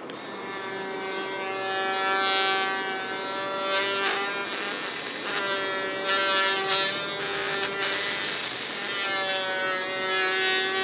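Handheld mini electric drill with a fine bit boring into a thick wood slice, running with a steady whine that starts suddenly and grows louder over the first couple of seconds. Its pitch dips for a moment a few times as the bit loads up in the wood. The thick wood makes the going slow.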